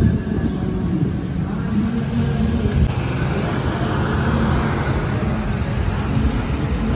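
Street traffic: a red articulated city bus passes close by. Its tyre and motor noise swells about three to five seconds in, over a steady low rumble of traffic.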